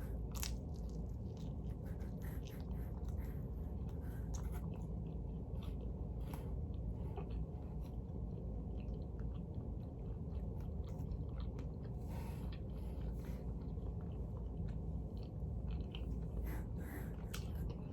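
Person chewing pizza close to the microphone, with scattered wet mouth clicks and smacks over a steady low hum.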